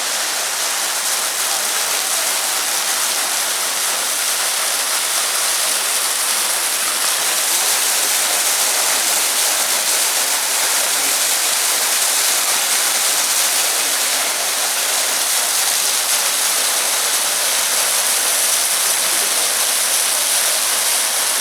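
Hedge Creek Falls, a 30-to-35-foot waterfall plunging over a basalt cliff, heard close up as a steady rushing hiss of falling water.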